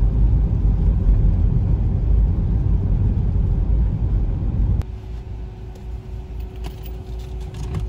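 Loud, steady low rumbling noise that drops abruptly about five seconds in to a quieter hum with a faint steady tone and a few clicks.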